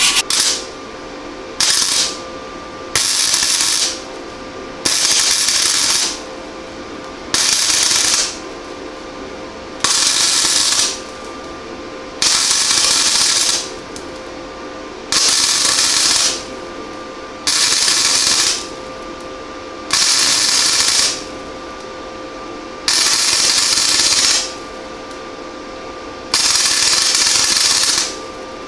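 Flux-core wire welder striking short arcs on thin 22 gauge sheet steel: about a dozen bursts of arc noise, each a second or so, spaced about two seconds apart, the last a little longer. A steady hum carries through the gaps. The stop-and-start tacking, with the wire feed at its lowest speed, is done to keep the thin metal from burning through.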